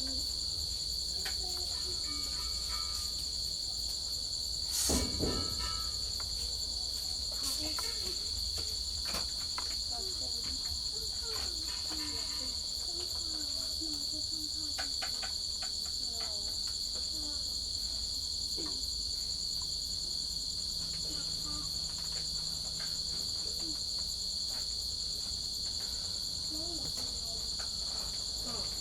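Crickets trilling steadily and without break, with a single sharp knock about five seconds in and a few faint clicks.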